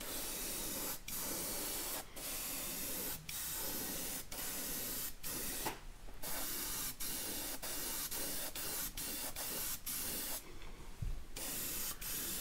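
Iwata HP-C gravity-feed airbrush spraying paint in a run of short strokes: a steady hiss of air cut by brief stops about once a second.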